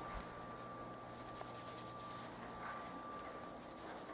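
A beagle moving about on a wood floor and mat: faint scattered clicks of its claws and light rustling, over a faint steady high tone.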